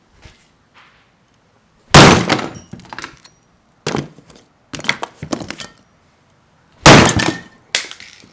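A Samsung smartphone being smashed, about five hard blows with glass cracking and breaking. The first blow, about two seconds in, and the fourth, near seven seconds, are the loudest.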